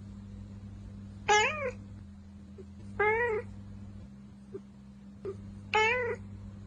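A domestic cat meowing three times, each meow short and rising then falling in pitch, over a steady low hum.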